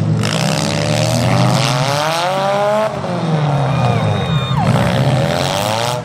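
Demolition derby car engines running and revving. The pitch climbs over a couple of seconds, drops, then rises and falls again as the cars accelerate and back off. A thin high squeal comes briefly past the middle.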